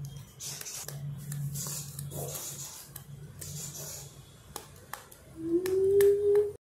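Fingers press the silicone bubbles of a flower-shaped pop-it fidget spinner, giving a few sharp clicks in the second half over a soft rustle of hands on the toy. Near the end a voice-like tone rises and holds for about a second; it is the loudest sound.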